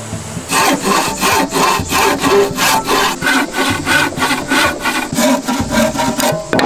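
Hand sawing with a traditional wooden frame saw, its thin blade cutting through a wooden beam in fast back-and-forth strokes, about three a second, starting about half a second in.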